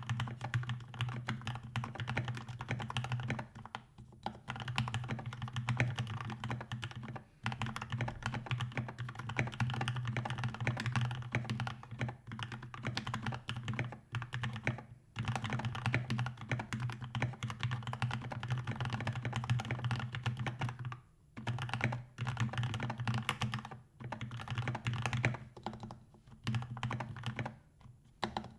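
Fast typing on a 60% custom mechanical keyboard (Skyloong GK61XS) with lubed, filmed Gateron Milky Yellow linear switches and foam and tape mods, set directly on the desk. Dense runs of keystrokes with a deep low tone break off in short pauses every few seconds.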